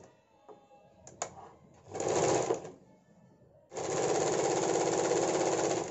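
Sewing machine stitching a strip of fabric into a doori (tube strap) in two runs: a short burst about two seconds in, then a longer steady run of about two seconds that stops near the end. Faint clicks of the fabric and machine being handled come before the first run.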